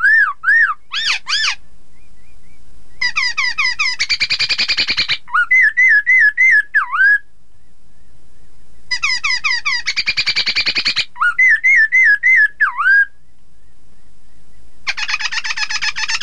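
Black-throated laughingthrush singing loudly: clear whistled notes that rise and fall, runs of quick slurred notes and a fast, dense chatter. The same song phrase comes back about every six seconds after a short pause.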